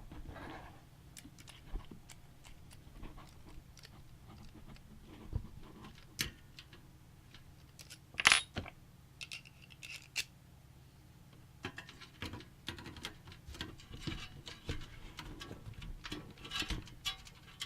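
Scattered small clicks, taps and light knocks of computer parts being handled during a PC build, with one sharper click about eight seconds in.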